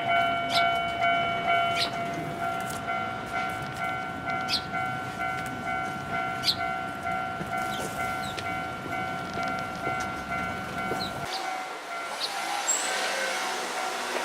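Japanese railway level-crossing alarm ringing, its electronic bell tone repeating about twice a second. Under it a low rumble cuts off abruptly about eleven seconds in, and short high chirps come through now and then.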